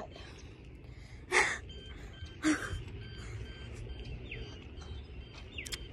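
Two short, sharp breathy gasps about a second apart, from a girl whose mouth is burning from a bitten ghost pepper, over a steady low rumble.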